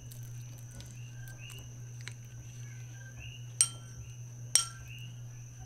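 A spoon clinks twice against a ceramic bowl, about a second apart, while wet cat food is scooped into it, over a steady low hum.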